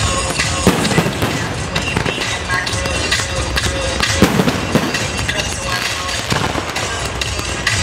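Fireworks crackling and popping densely and without a break, with loud music playing over them.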